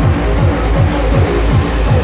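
Hardcore techno played loud over a festival sound system, a heavy kick drum falling in pitch on every beat, about three beats a second.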